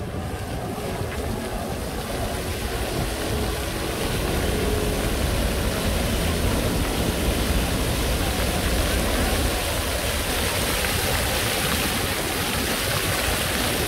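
Water jets of a ground-level plaza fountain spraying up and splashing back onto the paving, a steady rush of water that grows louder about four seconds in.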